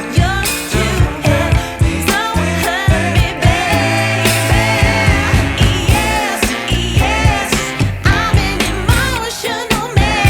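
Pop song with a female singer over a steady beat and bass.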